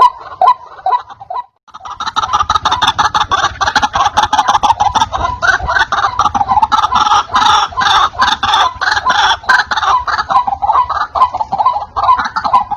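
White-breasted waterhen calling: a loud, rapid run of repeated croaking "ruak-ruak" notes, the call used as a lure to draw in wild waterhens. It drops out briefly about one and a half seconds in, then resumes denser and faster.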